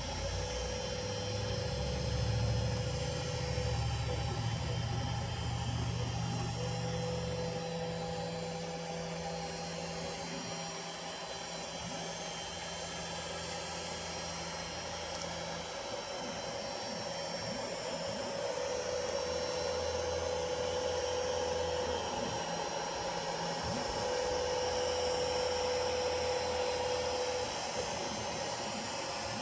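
Home-built CNC router running under its NEMA 23 hybrid closed-loop stepper motors. A steady whine starts and stops in stretches of a few seconds as the axes move, over a continuous mechanical hum.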